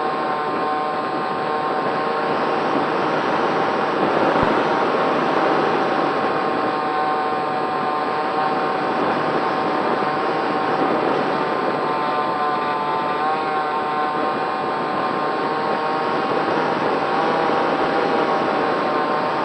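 Onboard sound of a SkySurfer RC plane in flight: its Racerstar BR2208 brushless electric motor and propeller whining steadily over a rush of air, the pitch wavering briefly about two-thirds of the way through.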